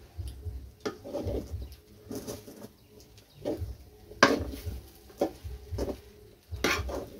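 Slotted metal spatula scraping and knocking against an aluminium kadai as thick, nearly cooked upma is stirred and turned, in irregular strokes about a second apart.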